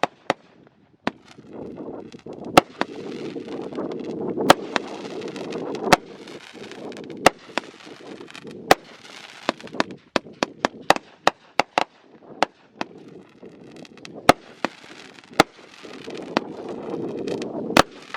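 Consumer fireworks going off: a long, irregular run of sharp cracks and pops, sometimes several a second, with three stretches of dense hissing crackle among them.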